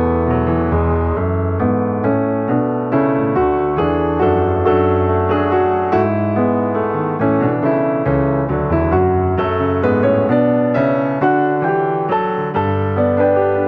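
Background instrumental music: a steady flow of melody notes over sustained low bass notes.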